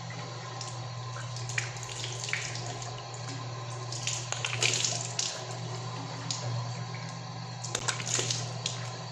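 Water splashing and hands rubbing wet skin as a face is washed over a sink, rinsing off a face mask, in bursts about two, four to five, and eight seconds in.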